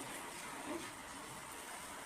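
Faint steady hiss of a pot of spiced ginger drink simmering on the stove.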